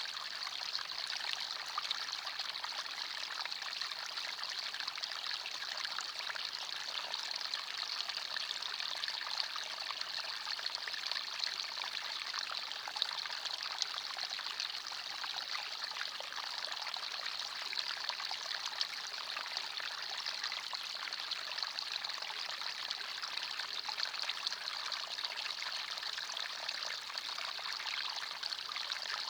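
Forest stream flowing and trickling over stones: a steady, even babble of water with no breaks.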